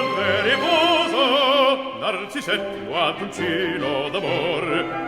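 Music with an operatic singing voice, the held notes wavering with heavy vibrato.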